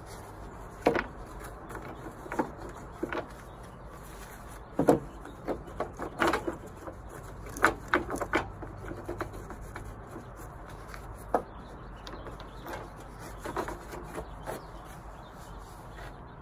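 Rough rocks clacking and knocking against one another as they are set by hand, one at a time, into a wire-mesh gabion cage. The knocks are irregular, with the loudest about five seconds in.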